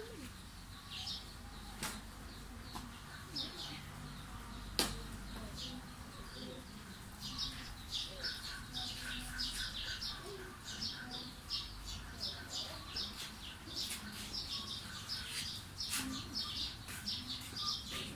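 Small birds chirping over and over in the background, with a quick run of lower chirps about halfway through. Two sharp clicks cut in, about two and five seconds in.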